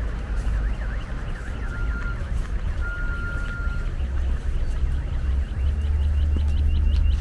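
Street traffic on a wide city avenue: cars driving past on wet, slushy road with a steady low rumble. A quick run of high chirps, about four or five a second, starts near the end.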